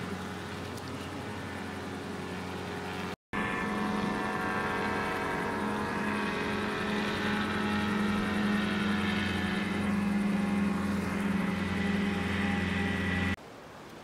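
Powered paraglider's motor and propeller buzzing steadily overhead. There is a brief silent break about three seconds in, then the buzz is louder and steady until it cuts off shortly before the end.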